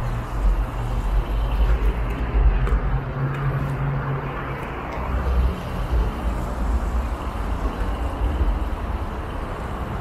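City road traffic heard from a bicycle, with a steady noise of passing vehicles and a strong, unsteady low rumble.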